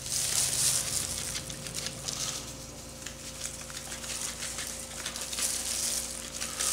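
Dry seasoning rub shaken from a spice shaker onto raw chicken skin, the granules pattering down in a fine, uneven stream of small dry ticks.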